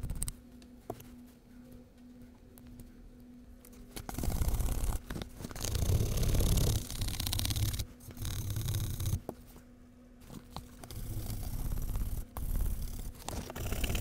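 Bristle brush scrubbing vigorously over vegetable-tanned leather, brushing leftover saddle soap out of the surface and stitching. It is quiet with a few light taps for the first few seconds, then comes in runs of rapid brush strokes.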